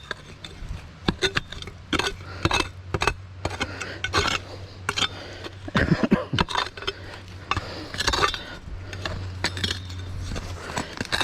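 Metal shovel digging in rocky ground, its blade clinking and scraping against stones and a large buried object in an irregular run of sharp strikes.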